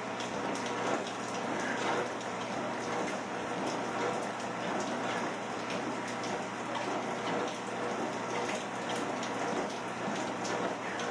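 Steady rain falling, with the low hum of a treadmill's motor and belt and the light thud of walking steps underneath.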